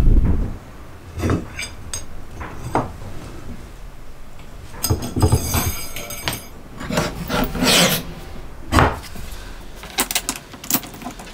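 Assembly handling noise from a wooden jig: light clicks and knocks of wooden blocks, then two stretches of metallic scraping about halfway through as steel linear-motion rods carrying coil springs are slid and handled. A duller knock follows, and a few quick clicks near the end as small wooden parts are fitted.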